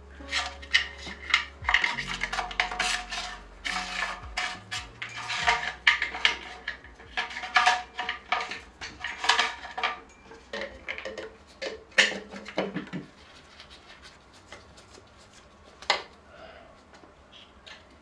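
Small hard parts and cable ends clicking and rattling as gloved hands fit cables on a mountain bike frame. The clicks come fast and irregular for about thirteen seconds, then thin out to a few, with one sharper click a few seconds before the end.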